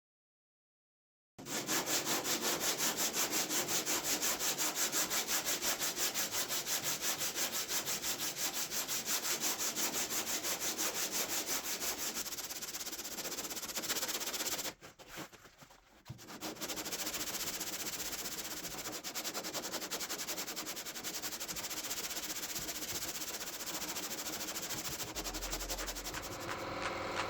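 Rapid, rhythmic sanding of epoxy primer on steel car body panels with 180 grit sandpaper, a quick scratchy rubbing stroke repeated several times a second. It starts about a second and a half in and pauses briefly about halfway.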